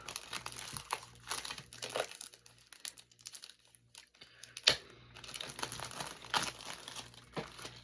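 Plastic wrapping crinkling and being torn as it is pulled off, in irregular crackles, with one sharp click a little past halfway.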